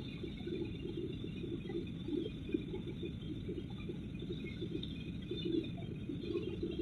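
Steady jet airliner cabin noise during the descent, with an irregular low fluttering in it.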